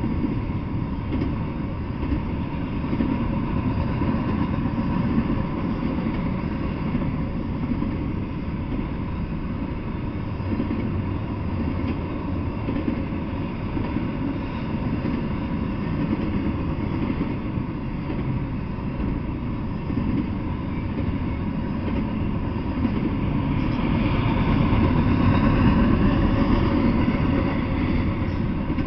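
Double-stack intermodal freight train rolling past, a steady rumble of steel wheels on rails that grows louder for a few seconds near the end.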